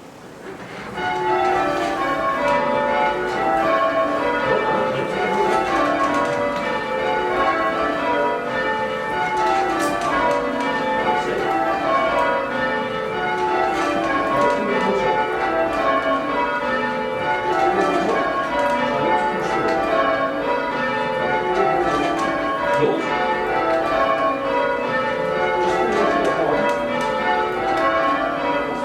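Blackburn Cathedral's ring of church bells, rung full-circle by hand in rounds. Each bell strikes in turn from the highest, the treble, down to the lowest, the tenor, and the falling run repeats over and over at an even pace. The ringing starts about a second in.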